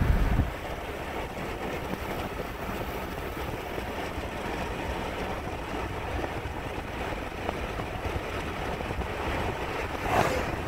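Steady wind and road noise of a car driving along, heard from inside the car. There is a brief swell about ten seconds in.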